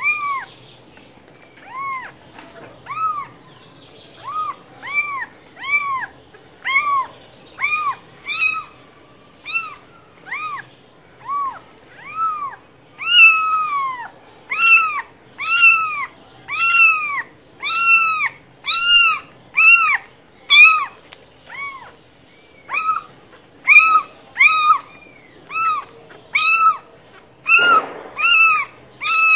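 A cat meowing over and over: short, high meows that rise and fall in pitch, about one to two a second, with no break between runs.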